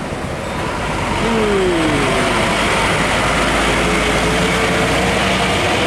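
Heavy diesel trucks driving past close by, with steady engine and tyre noise. About a second in, one truck's engine note falls in pitch as it goes by, and a steady engine drone follows.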